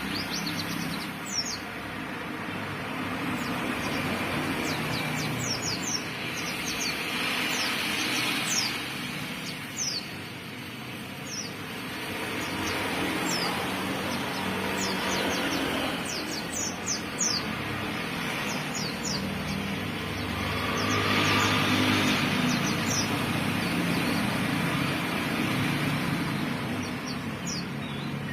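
Pleci (white-eyes) giving many short, high, falling chirps in quick succession, over a steady rumble and hiss that swells and fades in the background.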